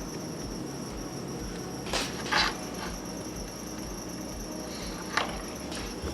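A few short clicks and scrapes of tools working on a circuit board during desoldering, two close together about two seconds in (the loudest) and a sharp one about five seconds in, over a steady high-pitched whine and a low hum.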